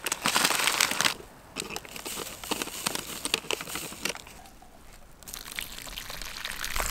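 A plastic instant-ramen packet and a foil flake sachet crinkling as they are handled, torn and shaken out into the bag, loudest in the first second and then in scattered rustles. Near the end, hot water from a vacuum flask starts pouring into the packet.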